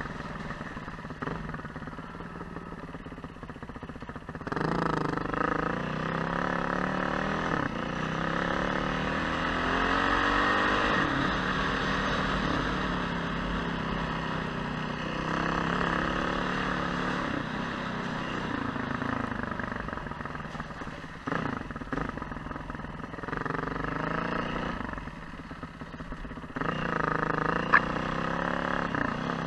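Off-road motorcycle engine running as the bike is ridden along a muddy lane, revs rising and falling with the throttle. It gets louder about four seconds in, eases off briefly, then picks up again near the end as the bike enters deep water, with one sharp click.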